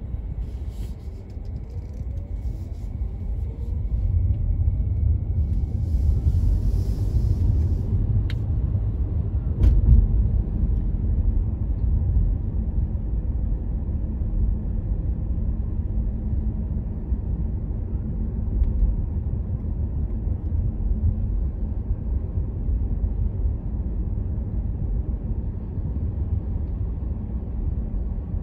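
Car driving, with a steady low rumble of engine and road noise that grows louder about four seconds in.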